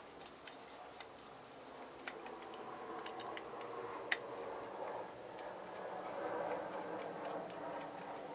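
Light scattered clicks and taps of tools and small metal and plastic parts being handled while an old 30 amp plug is taken apart, with one sharper click about four seconds in, over a faint steady hum.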